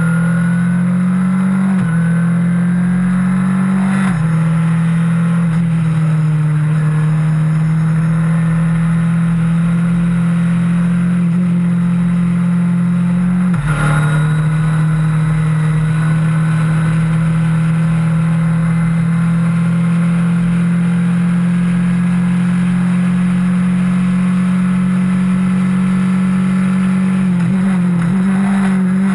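Skip Barber open-wheel formula race car engine running hard at high, steady revs under racing load. The engine note steps in pitch a few times, with a brief break about 14 s in as the car lifts and changes gear for a corner.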